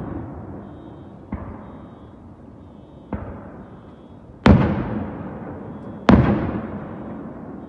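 Aerial firework shells bursting: four bangs, two fainter ones in the first half and two loud ones in the second half, each trailing off in a long fading rumble.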